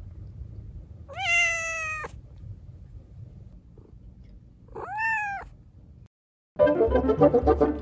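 Young tabby Korean shorthair cat meowing twice: a falling meow about a second long, then a shorter meow that rises and falls about five seconds in. After a brief gap near the end, a louder, rapidly pulsing sound takes over.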